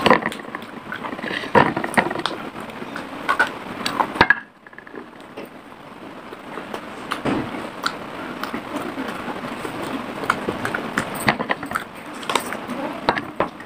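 Close-miked chewing and crunching of dry clay: many irregular sharp crackles and snaps, with a piece of a clay cup being broken off right at the microphone near the end.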